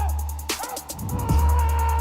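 Background music with long deep bass notes, a fast, even ticking on top and a held synth tone.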